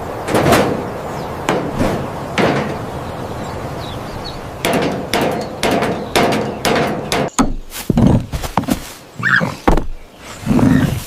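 A steady rumbling noise, then from about halfway in a quick run of sharp knocks and bangs, ending in a few heavier thumps.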